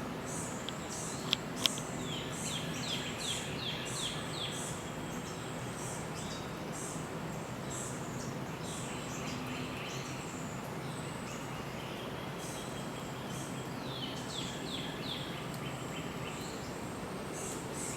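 Wild birds singing: a run of quick, repeated down-slurred notes comes twice, over a background of high, thin chirps. Two sharp clicks sound close together about a second and a half in.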